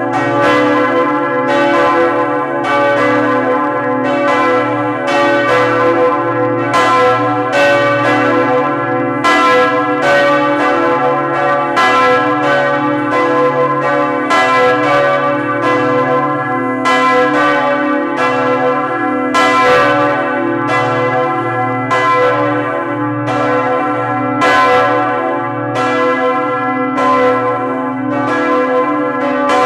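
Two large bronze church bells of 2.2 and 2.5 tonnes, cast by Lhéritier-Dubois, swinging in full peal at close range. Clapper strikes come about one to two a second, the two bells' strokes interleaving, each ringing on into the next over a deep, sustained hum.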